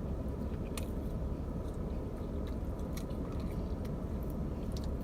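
Close-up chewing and biting of cheese bread, wet mouth clicks scattered throughout, over a steady low rumble.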